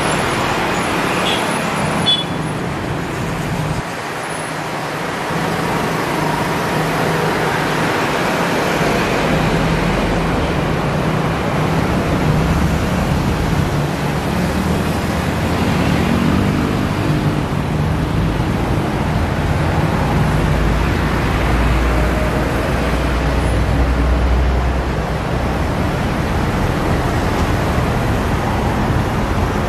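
Road traffic noise: a steady wash of passing vehicles, with a low engine rumble from a heavy vehicle swelling through the middle and then fading.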